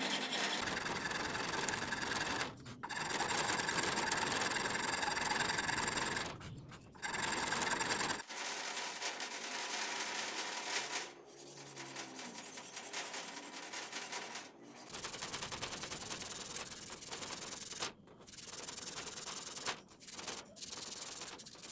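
A hand file scraping across a wooden knife handle in repeated strokes, with short pauses. About eight seconds in it gives way to an abrasive strip pulled back and forth around the handle, sanding it in a steady rubbing rhythm broken by brief stops.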